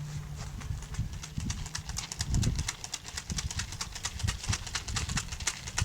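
A bicycle rigged to make a motorbike noise, clicking rapidly as it is ridden. The clicks come closer together toward the end.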